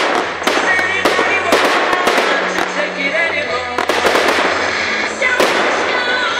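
Fireworks going off: repeated bangs and crackles at irregular intervals, over music.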